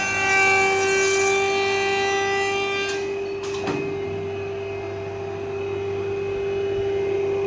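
Background music of long held notes over a steady drone, with the notes changing about halfway through.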